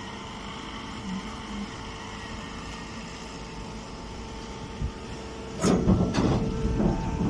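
Machinery running with a steady hum and several held tones; about five and a half seconds in, a much louder clattering, knocking noise starts and keeps going.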